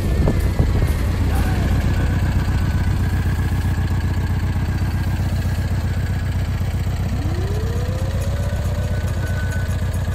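Vehicle engine running steadily at low speed on a dirt track, a continuous low rumble.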